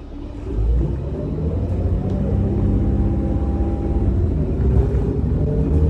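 City bus pulling away: a low engine rumble grows louder about half a second in, with a drivetrain whine that rises in pitch and then holds steady.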